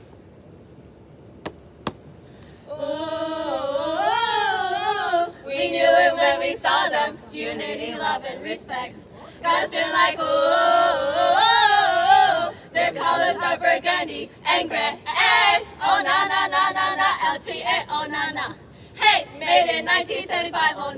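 A small group of women singing a greeting chant together without accompaniment, starting about three seconds in and going on in short phrases.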